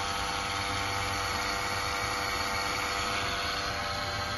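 Electric fuel lift pump on a JCB telehandler running with a steady hum, self-priming the fuel system to bleed air out after new fuel filters were fitted.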